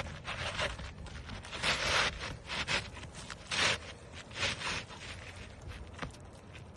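Asphalt roof shingle scraping and rustling in a series of short irregular scrapes as a new shingle is slid into place under the course above.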